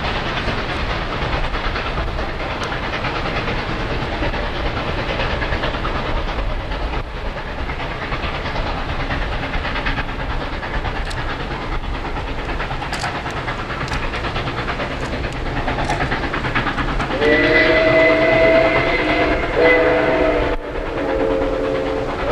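Steam locomotive Nickel Plate Road 2-8-4 Berkshire No. 765 running with a steady rushing noise, then blowing its whistle about three-quarters of the way in: several tones sounding together in one long blast, broken twice by short gaps and running on past the end.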